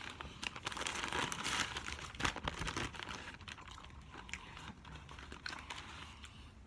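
Eating a crispy fried chicken sandwich: crunchy bites and chewing with wrapper paper crinkling, as a run of short crackly clicks that is busiest in the first three seconds and then thins out.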